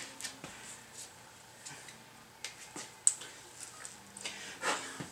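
Small metal parts and hand tools clinking and clicking as they are picked up and handled, with one sharp click about three seconds in and a short rustling noise near the end.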